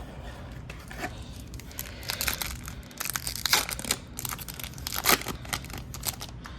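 A hockey card pack's wrapper being torn open and crinkled by hand, an irregular run of crackles and rips.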